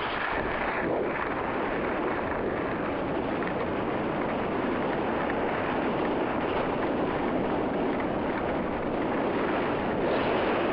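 Steady rush of wind across the camera microphone while skiing downhill, getting a little louder near the end.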